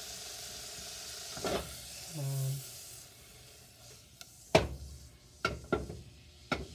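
Butter sizzling as it melts in a small pot, the sizzle dying down about three seconds in. A knife then clinks against the pot several times as the butter is pushed around.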